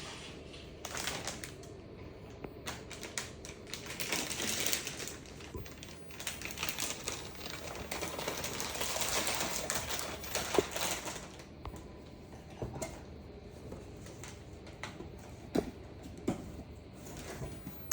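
Computer parts being handled during a PC build: a run of small, irregular clicks and taps with stretches of rustling, louder at about four seconds in and again from about seven to eleven seconds.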